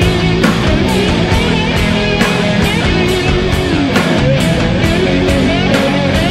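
Rock music with electric guitar over a steady drum beat of about two hits a second.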